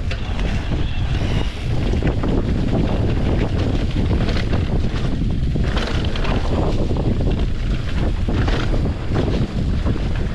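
Wind rushing over the microphone of a mountain bike descending a downhill dirt trail at speed, with a steady rumble and many short knocks and rattles from the bike over rough ground.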